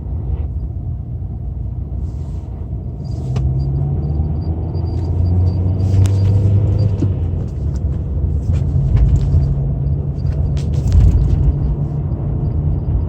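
Renault Mégane II 1.6 petrol four-cylinder engine running, its speed and loudness rising about three seconds in, with sharp irregular knocks heard over it. This is the unexplained knocking and crunching that shows up at 1500–2500 rpm even with a new timing belt, new rollers and a new phase shifter.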